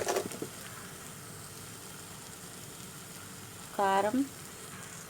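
Onion and ginger masala paste sizzling steadily as it fries in oil in a pan, with a few light clicks in the first half second.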